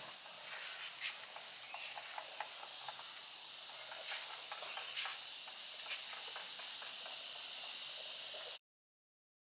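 Paint roller rolling wet concrete paint over rough rendered concrete, giving a soft sticky crackle of irregular clicks, over a steady high cicada drone. The sound cuts off suddenly about a second before the end.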